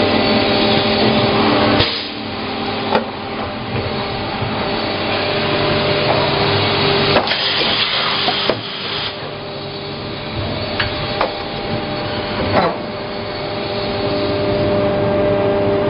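Injection moulding machine cycling on a bucket lid mould: a steady machine hum and hiss, with a series of sharp clunks and clicks as the mould moves and the lid is released.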